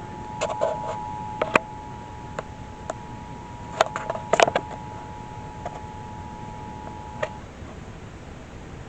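Emergency Alert System attention signal from a television: a steady two-tone alarm (about 850 and 960 Hz) that cuts off about seven seconds in. Several sharp clicks and knocks sound over it, the loudest a cluster about four seconds in.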